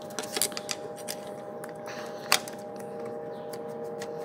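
Small metallic clicks and taps of a screwdriver and parts on a Kansai Special multi-needle sewing machine as screws are tightened, with one sharper click a little past halfway. A steady faint hum runs underneath.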